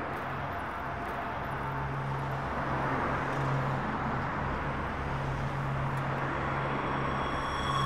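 Steady road traffic noise, with a low engine hum underneath and a slight swell as a vehicle passes about three seconds in.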